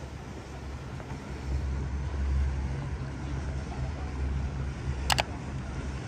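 Low, steady engine hum that swells about a second and a half in, with a short sharp clack about five seconds in.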